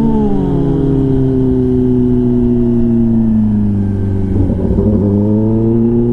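Kawasaki ZX-10R inline-four running through an SC-Project titanium exhaust. The revs fall away for about three seconds, break briefly about four seconds in, then climb again as it pulls away.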